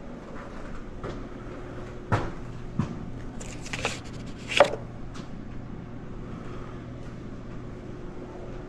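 A paper pamphlet being handled in a clear plastic wall-mounted brochure rack: a few knocks and clicks, a brief paper rustle and a sharp plastic click about four and a half seconds in, over a faint steady hum.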